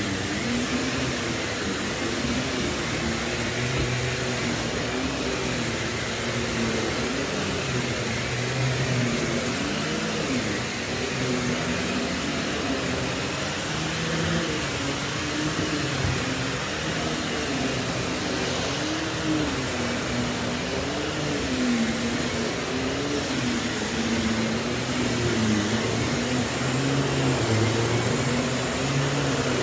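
Miele S194 QuickStep stick vacuum running continuously while cleaning the floor. Its motor hum wavers up and down in pitch over a steady rush of air.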